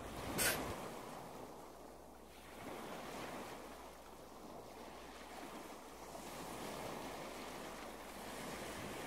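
A short sharp swish just under half a second in, then a soft rushing noise like surf that swells and eases in slow waves.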